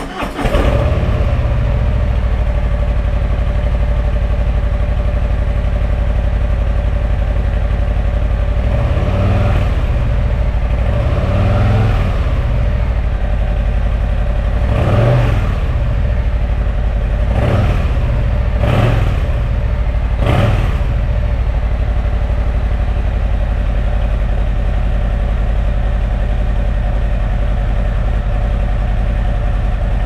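Harley-Davidson Low Rider ST's Milwaukee-Eight 117 V-twin on its stock exhaust, just started and idling. About halfway through it is revved six times in short blips, then settles back to a steady idle.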